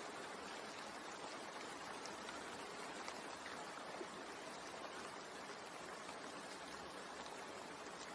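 Steady rain falling, an even hiss with a few faint individual drops.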